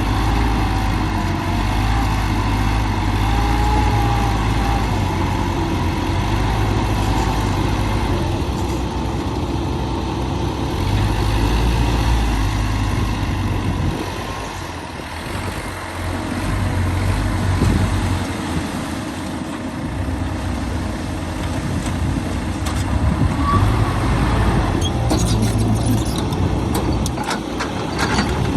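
Heavy truck or earthmover engine running, steady and low, easing off for a few seconds near the middle; a run of sharp knocks or clicks near the end.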